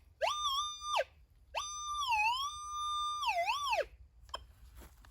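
Metal detector's audio tone rising and falling as the search coil sweeps over a buried target: a short sweep, then a longer one where the tone holds, dips and swoops away. It is a target signal that the detectorist reads as brass and bronze.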